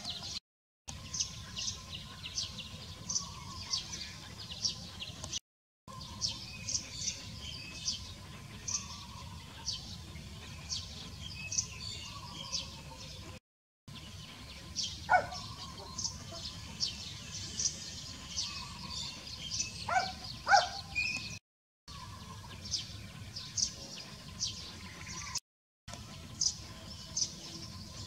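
Birds chirping in short repeated high calls, over a faint steady low rumble. A few louder short calls stand out about halfway through and twice in quick succession about two-thirds of the way in. The sound breaks off for a moment several times.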